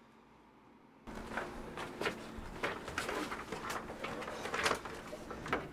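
Near quiet room tone, then about a second in a busy run of irregular knocks, clatters and rustles, like doors and objects being handled in a small room.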